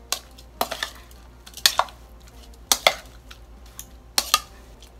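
Stainless-steel spoon knocking and scraping against a plastic mixing bowl while stirring chunks of fish into curry paste, with short clusters of clinks about once a second.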